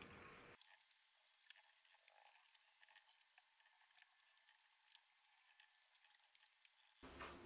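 Faint, scattered clicks of wooden chopsticks and a spoon against ceramic bowls and a plate while eating, over a thin hiss.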